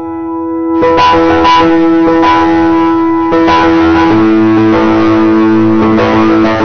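Instrumental intro music: held notes, then a fuller band with regular beats comes in about a second in.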